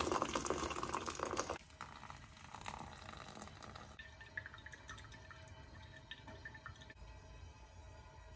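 Hot water poured from a kettle into a glass measuring cup: a steady rush that stops about a second and a half in. Then faint trickling and scattered light drips of brewed coffee falling through a metal cone filter into a glass carafe.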